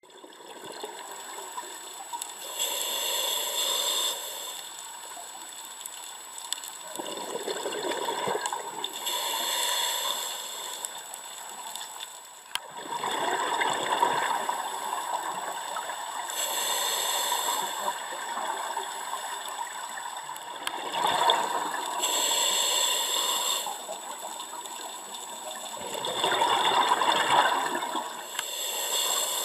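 A scuba diver breathing through a regulator underwater, heard through the camera housing: a high hiss as air is drawn in, then a rush of exhaled bubbles, in a slow cycle of about six to seven seconds.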